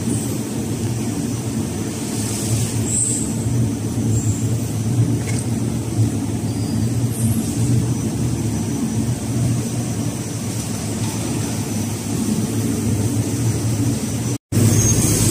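A steady low mechanical drone, as of machinery running in a factory hall, with a few faint high squeaks. It drops out for a moment near the end.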